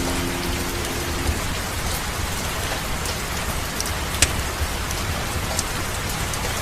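Steady rain falling, with scattered sharp crackles and drop clicks. A sustained music note stops about a second in.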